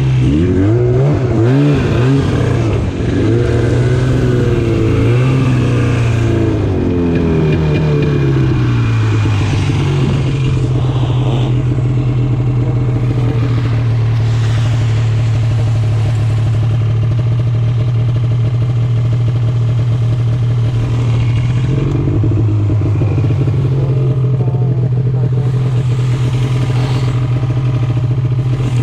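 Two-stroke snowmobile engine under way, its revs rising and falling for the first ten seconds or so, then held steady at a cruising speed. The revs dip briefly about 22 seconds in and drop and climb again near the end.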